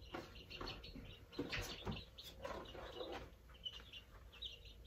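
Young, partly feathered chicks peeping faintly from a cardboard carrier box in short, repeated chirps, with scattered rustles and clicks as the box is opened and one chick is lifted out.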